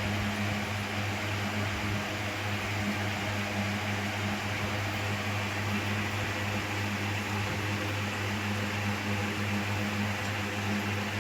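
Steady low machine hum with an even hiss over it, unchanging throughout; no bird calls stand out.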